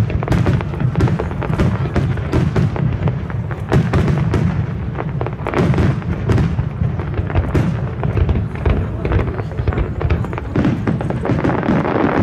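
Fireworks display: aerial shells bursting in rapid, overlapping bangs over a continuous low rumble.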